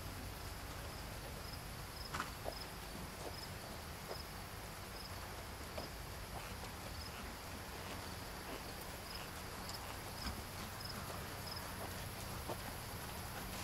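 A horse's hooves trotting on gravel-and-sand arena footing: soft, irregular thuds. Over them, an insect chirps steadily about twice a second.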